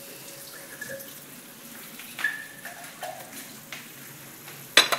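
Pinakbet stew simmering in a stainless steel pot with a faint steady bubbling hiss and a few light clicks. A sharp clatter comes near the end.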